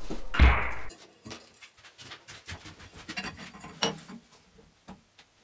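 The end of a loud electronic music sting about a second in, then light, irregular scraping and tapping on a steel square tube clamped in a bench vise.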